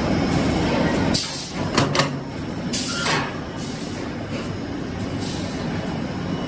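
Pipe-extrusion line machinery running steadily in a PVC pipe plant, with several sharp knocks between one and two seconds in and a short hiss about three seconds in.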